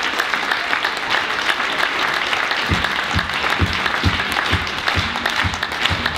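Audience applauding steadily after a samba. A little under halfway through, a steady low drum beat from the band comes in under the clapping, about two beats a second.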